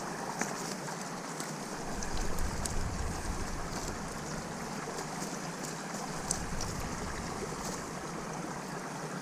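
Steady rush of flowing river water, with small clicks and rustles of a nylon net being handled as fish are pulled from it. A low rumble comes in for a few seconds in the middle.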